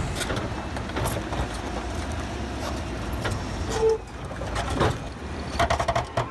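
LKT forestry skidder's diesel engine running under load, with scattered knocks and clanks.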